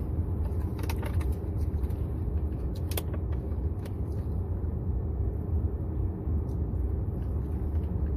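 Steady low rumble of a car heard from inside the cabin, with a few light clicks about one, three and four seconds in.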